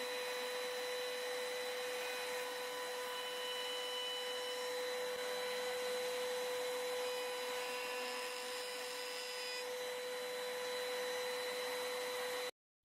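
A small power tool's motor running at one steady speed, an even high whine over a hiss, which cuts off suddenly near the end.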